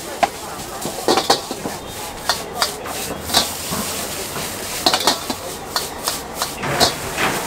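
Metal ladle scraping and clanking against a wok as noodles are stir-fried, in irregular strokes over a steady hiss.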